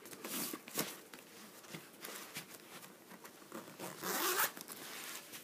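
Fabric weekender bag being handled as a paperback book is slid into its pocket: short rasps and rustles, with a longer, louder rasp about four seconds in.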